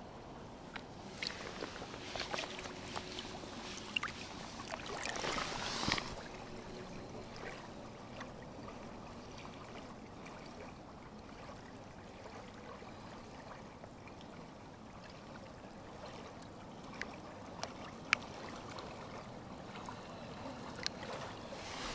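Shallow lake water lapping and splashing around a hand holding a caught fish under the surface to revive it before release. There are scattered small splashes and drips, with a louder stretch of splashing about five seconds in.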